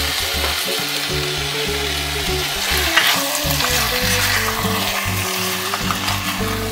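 Cubed beef coated in paprika and goulash seasoning sizzling in melted pork fat in a pot, stirred with a spoon. A single knock sounds about three seconds in.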